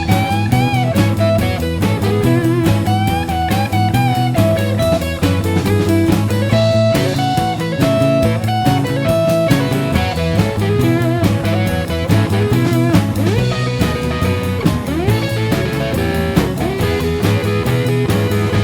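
Instrumental break of a rock-style song: a guitar plays a lead melody with bending notes over bass and a steady drum beat.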